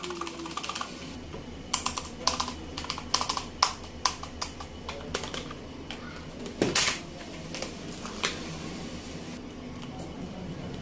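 Typing on a semi-mechanical gaming keyboard: irregular key clacks in quick clusters, with one louder strike about seven seconds in.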